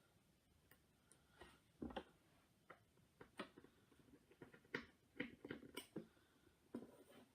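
Faint, scattered clicks and ticks of small screws being driven into an iPad 2's LCD with a precision screwdriver, with a quick run of clicks a little past the middle.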